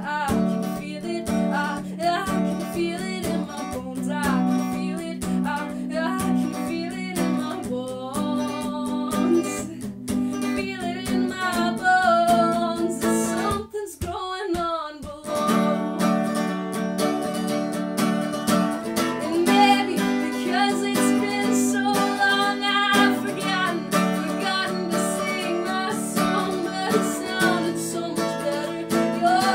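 A woman singing with her own strummed acoustic guitar. The guitar and voice drop out briefly about halfway through, then carry on.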